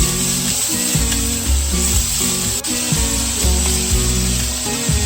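Food sizzling as it fries in a pan, a steady hiss, under background pop music with a bass line and chords.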